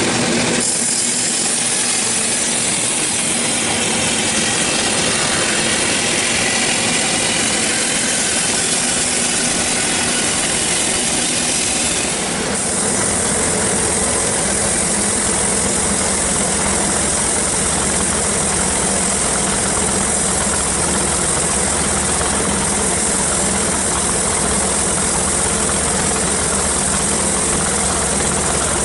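Engine-driven sawmill machinery running steadily, with a shift in tone about twelve seconds in.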